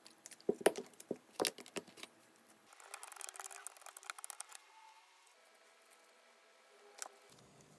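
Clear slime being worked by hand: a few sharp pops and clicks, then a stretch of soft crackling, and one last pop near the end.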